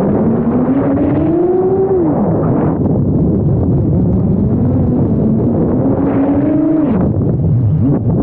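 Motors and propellers of a DJI Mavic Air 2 rebuilt as an FPV drone, whining over a rushing noise, heard close from a camera riding on the drone. The whine's pitch slides up and falls away several times as the throttle changes, with a sharp drop about seven seconds in.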